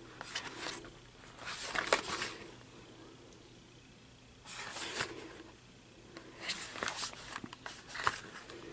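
Hands turning and rubbing a small cardboard knife box: about five short scraping rustles a second or two apart, a few with a light tap.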